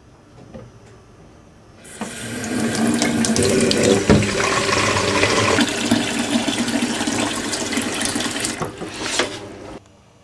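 Kitchen tap running, water splashing into a plastic watering can held under the stream. The flow starts about two seconds in and cuts off abruptly near the end.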